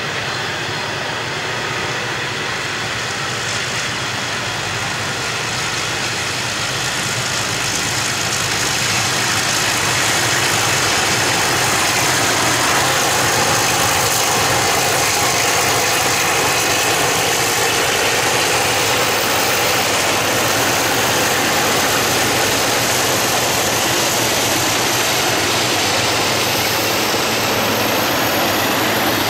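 Three banking diesel-electric locomotives (48s34, 602 and 442s5) pushing a loaded grain train up a grade, their engines working under load. Rolling grain wagons come first, then the engines grow louder about a third of the way in as the bankers pass, and stay loud.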